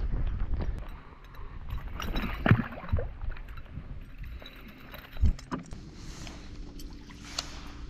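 Handling noise on a boat as a fish is unhooked with metal lip grips: scattered knocks and clicks. About six seconds in, a steady low hum from a boat motor starts.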